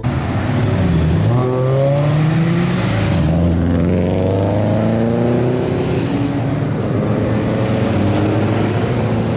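Car engine revving hard as a car accelerates away, its pitch climbing, dropping once about two and a half seconds in at a gear change, then climbing slowly again.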